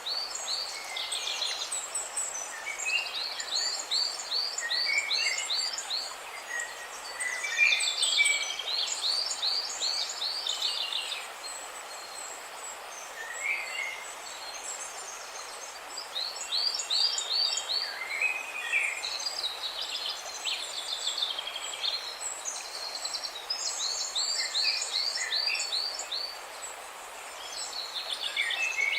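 Several songbirds chirping and singing, with fast runs of repeated high notes and scattered lower chirps, over a steady hiss of splashing water. The birds go quieter for a few seconds midway.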